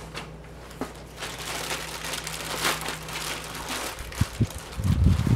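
Clear plastic parts bag crinkling as it is handled and worked open, with a few low thumps near the end.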